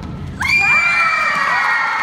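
A crowd of children cheering and screaming, starting suddenly about half a second in, with many high voices rising and then holding.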